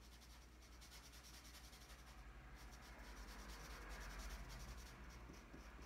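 Black felt-tip marker rubbing quickly back and forth on paper, faint, as a small circle is coloured in solid.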